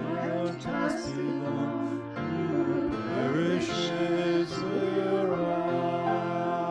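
A man singing a hymn verse to a grand piano's accompaniment, the voice moving over held piano chords.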